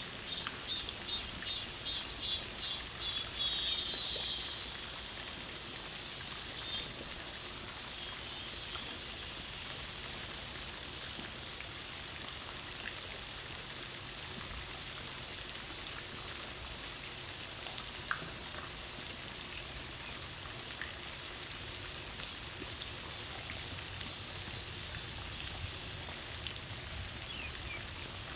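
Insects buzzing high and thin: a fast pulsing trill for the first few seconds, then a loud steady hiss from about 7 to 10 seconds, then a fainter steady buzz that sets in about 20 seconds in.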